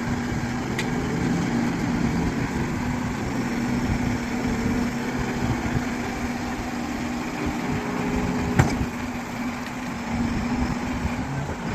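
Crane truck engine running steadily with an even hum, and one sharp knock about eight and a half seconds in.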